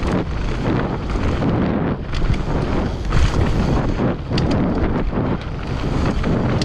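Wind buffeting the GoPro microphone as a mountain bike descends a trail at speed. Tyres rumble over the ground throughout, with frequent sharp knocks and rattles from the bike going over bumps.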